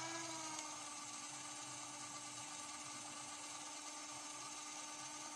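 CD Doctor disc repair machine running its repair cycle, its motor spinning the disc with a steady whirring hum. The pitch rises briefly and settles at the very start.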